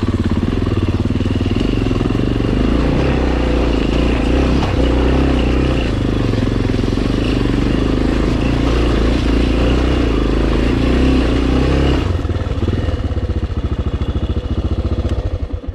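Yamaha XT 600's single-cylinder four-stroke engine running steadily under way, then dropping to a slower, pulsing beat about twelve seconds in, and falling away sharply at the very end.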